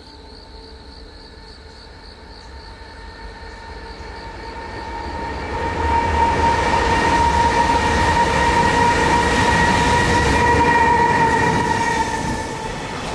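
Electric freight train coming out of a tunnel and passing close by. The rumble and a steady high-pitched whine build over about six seconds, then stay loud as the container wagons roll past, and ease slightly near the end.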